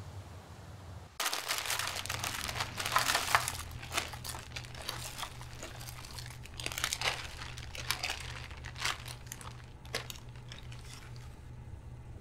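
Plastic candy wrappers crinkling in a bowl of wrapped candy. A dense rustle of wrappers starts suddenly about a second in, then thins to scattered crinkles.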